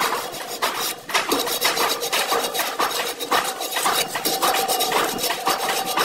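Hand scraping or rubbing on a spiked metal grille in quick, uneven strokes that run on throughout.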